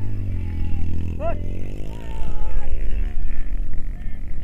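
Motorcycle engine running, then revving and pulling away, with people shouting over it.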